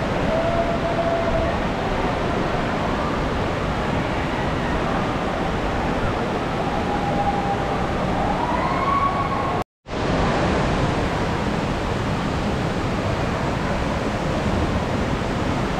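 Steady rush of flowing water in a water park's lazy river and slide runs, with a few faint high sliding tones in the background. The sound drops out for an instant about ten seconds in.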